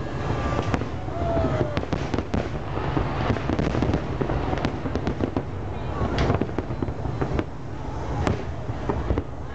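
Large fireworks display: aerial shells bursting in a rapid, continuous run of bangs and crackle over a steady low rumble.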